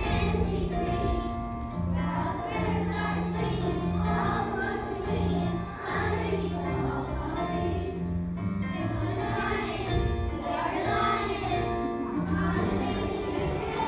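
A song plays continuously: voices singing together over a steady, stepping bass line, as a dance accompaniment.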